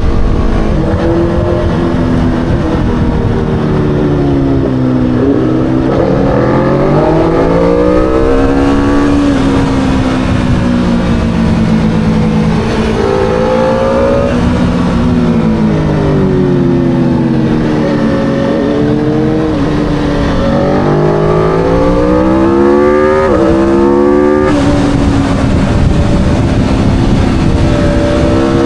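Aprilia Tuono V4 motorcycle's V4 engine under hard track riding, revving up through the gears and dropping back in pitch several times as it accelerates and slows for corners.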